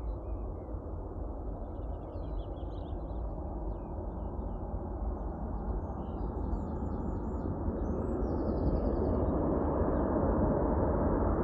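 Boeing C-17A Globemaster III's four turbofan engines rumbling on approach to land, growing steadily louder as the aircraft nears. Birds chirp faintly over it.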